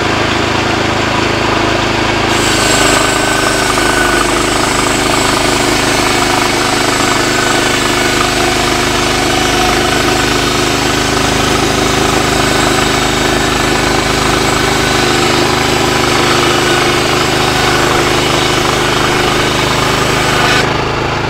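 Woodland Mills HM126 portable band sawmill cutting along a log: the sawmill's gas engine runs steadily under load, and a higher cutting noise from the band blade in the wood joins about two seconds in and drops away near the end as the blade leaves the log, with the engine running on.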